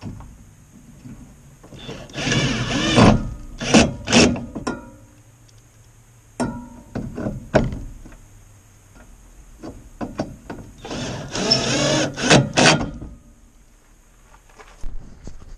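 Two spells of squeaky, scraping rubbing with a wavering pitch, each about a second and a half, roughly nine seconds apart, with clicks and knocks between them, as the motorhome's front grille is worked back into place.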